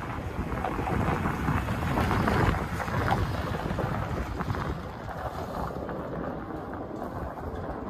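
2014 Ford F-250 Super Duty's 6.2L gas V8 running, a steady low rumble that grows louder for a moment around two to three seconds in, with wind buffeting the microphone.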